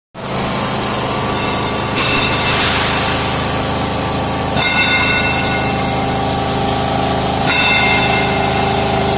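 Five-axis gantry CNC machine drilling a welded steel machine-bed frame: a steady machine hum with several steady tones, joined three times by a high-pitched whine, about two seconds in, near the middle and about three quarters through.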